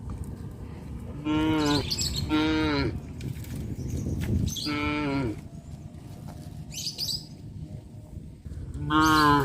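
Cattle mooing: four short moos, two close together early on, one in the middle and one near the end, each dropping in pitch as it ends.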